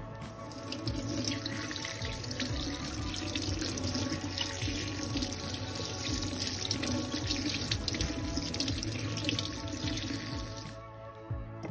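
Kitchen tap running into a stainless steel sink, the stream splashing over a handful of green peppers being rinsed in a cupped hand. The water shuts off near the end.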